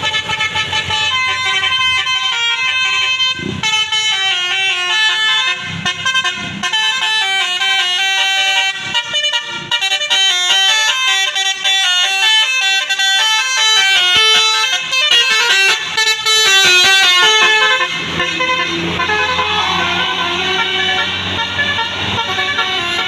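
Tour bus's 12-note 'telolet basuri' musical air horn playing a melody, note after note in quick steps. After about eighteen seconds the melody gives way to a lower, noisier rumble with fainter horn notes.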